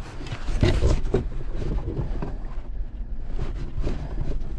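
Rustling and small irregular knocks of gloved hands handling a loosened dash panel and its wiring close to the microphone, over a steady low rumble.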